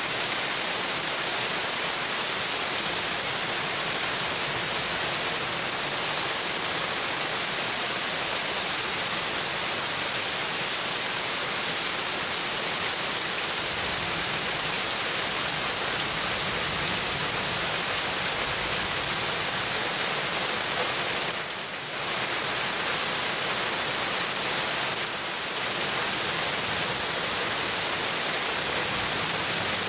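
Steady hiss of heavy rain falling on trees and ground in a thunderstorm, dipping briefly twice about two-thirds of the way through.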